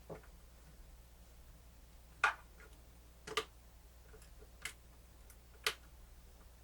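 Scattered light clicks and taps, about five spread irregularly, from small plastic parts of a disassembled cassette player being handled and worked loose.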